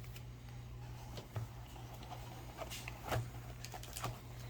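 Soft rustles and a few light taps of foil booster packs being handled and set down on a scale, over a low steady hum.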